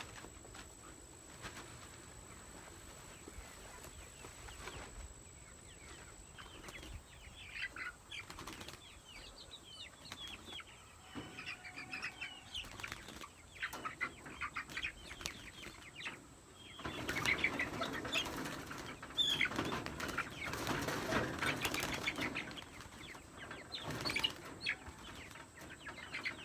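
Meat chickens in a chicken tractor: scattered short chirps and peeps, then a loud flurry of wings flapping from about 17 to 23 seconds in, with a shorter flurry near the end.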